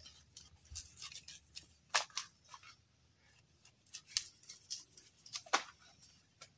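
A serrated knife cutting hands of green bananas off the fleshy banana stalk: a series of short scraping cuts and snaps, the loudest about two seconds in and again near the end.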